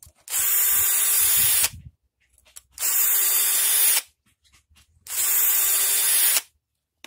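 Soyuz cordless drill spinning a round chainsaw file against a saw chain's cutter tooth, a grinding rasp over the drill motor's hum, in three bursts of about a second and a half with short pauses between: filing the chain's teeth sharp.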